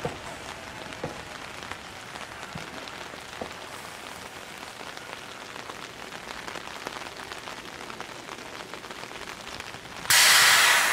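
Rain falling steadily, with a fine patter of drops. About ten seconds in, a sudden loud hiss cuts in.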